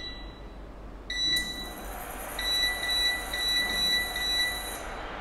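Induction hob's touch control panel beeping as its buttons are pressed to switch it on and set the heat. There is one beep right at the start and another about a second in, then five short beeps in quick succession between about two and four and a half seconds. A faint high whine runs under the beeps from about one and a half seconds in, stopping with the last beep.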